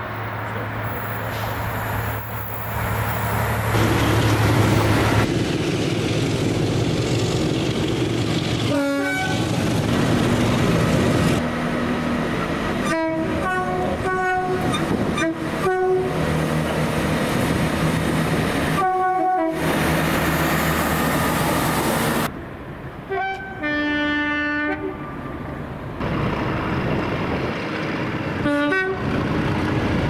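British diesel trains sounding their two-tone horns in turn, with short high and low blasts spread through, over the steady noise of the trains running past.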